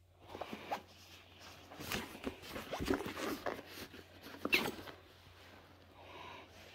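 Fabric backpack rustling and scraping as a hand rummages through it, with irregular light knocks and a sharper scrape about four and a half seconds in, as a paperback book is drawn out.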